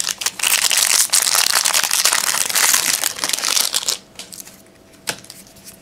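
Shiny trading-card pack wrapper crinkling loudly as it is pulled from the box and opened, for about four seconds, then quieter handling of the cards with a single click near the end.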